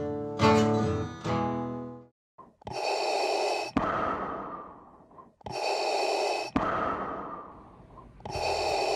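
A guitar music outro ends about two seconds in, followed by Darth Vader's mechanical respirator breathing sound effect: three hissing breaths, evenly spaced about three seconds apart, each fading out.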